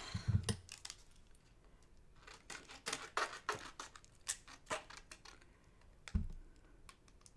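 Small scissors cutting a clear acetate sheet: a run of short, crisp snips. There are a couple of low thumps at the start and one a little after six seconds.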